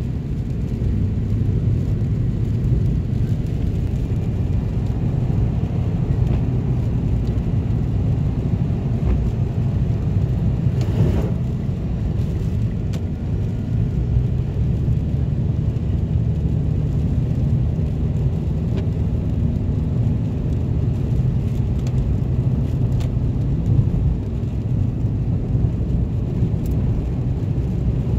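Steady low rumble of a vehicle driving on a highway, heard from inside its cabin, with a brief swell of noise about eleven seconds in.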